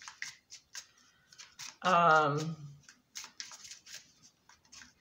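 Tarot cards being handled and shuffled on a tabletop: a run of quick, light clicks and flicks. About two seconds in, a brief wordless vocal sound is louder than the cards.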